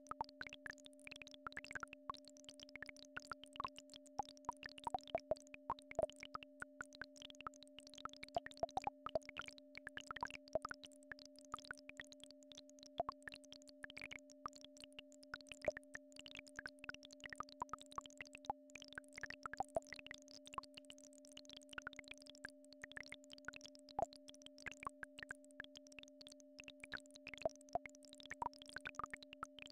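Synthesized healing-frequency tones for brainwave entrainment: a low steady tone and a higher steady tone held without change. Many small irregular plops and chirps are scattered over them.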